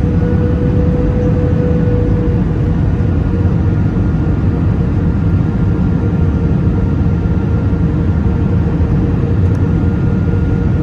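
Airbus A319 cabin noise in flight on approach, heard from a window seat over the wing: the steady rush of the engines and airflow, with a faint steady whine throughout that is a little stronger in the first two seconds.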